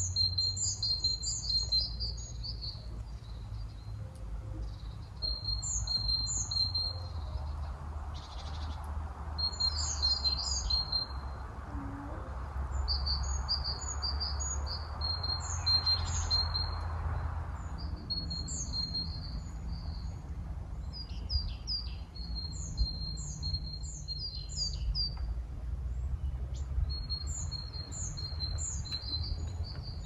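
Small songbirds singing short, quick, high chirping phrases, repeated again and again with brief gaps, over a steady low rumble; a soft rushing sound swells up in the middle.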